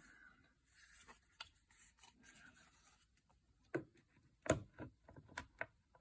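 Plastic interior door trim being handled and pressed into place: faint rubbing, then several sharp clicks and taps in the second half as its clips are lined up and snapped into the door.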